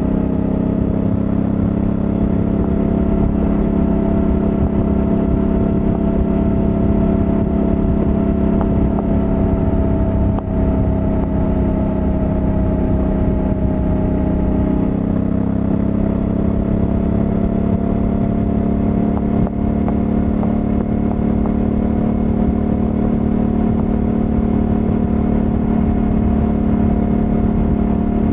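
2021 Honda Africa Twin 1100 DCT's 1084 cc parallel-twin engine running steadily at highway speed over a low rumble. The engine note dips slightly about halfway through, then climbs gradually toward the end.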